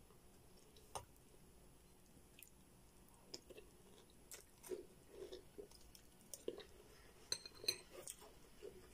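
A person chewing a spoonful of crunchy ring-shaped cereal in milk, with faint chewing and crunching noises from about three seconds in. There is a single sharp click about a second in and a quick run of sharp clicks near the end.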